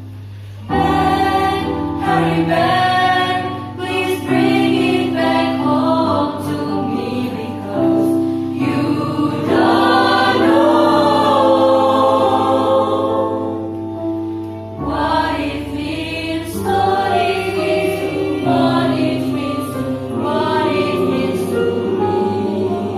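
School choir singing in several parts over held low notes, the voices coming in together under a second in after a brief pause.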